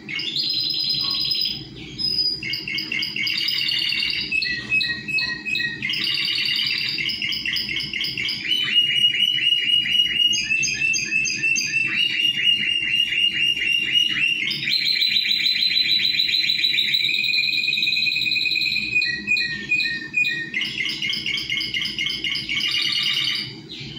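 Spanish Timbrado canary singing a continuous song of rapid trills and rolls, changing to a new phrase every second or few, and stopping just before the end.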